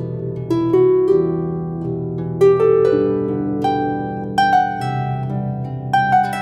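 Background music: a melody of plucked notes that ring out and fade, over held low notes.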